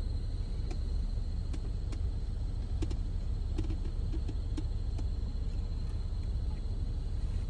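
Steady low rumble of a car idling, heard inside its cabin, with a faint steady high-pitched whine and a few faint light ticks.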